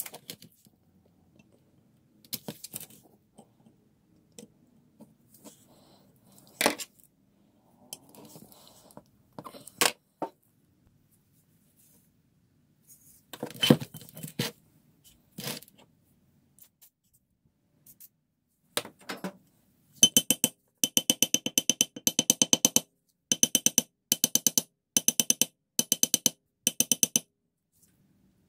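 Cast-iron vise parts clinking and knocking as they are handled and set down on a workbench. About twenty seconds in, a run of rapid, evenly spaced metallic clicks with a ringing edge lasts several seconds.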